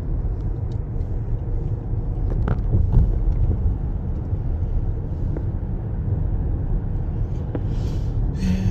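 A car driving: a steady low road rumble, with a few faint clicks.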